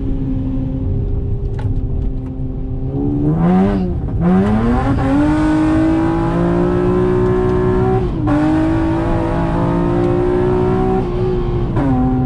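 A 400 hp Honda Accord's engine running low and steady, then accelerating with its pitch rising about three seconds in. The pitch dips briefly and climbs again, then holds a steady high drone with a hiss over it, and drops back down near the end.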